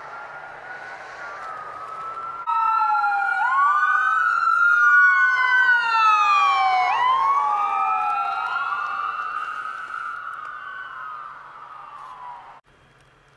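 Ambulance siren wailing in long rising and falling sweeps, faint at first. After a cut about two and a half seconds in it is much louder and close, peaks as the ambulance passes, then fades away before cutting off near the end.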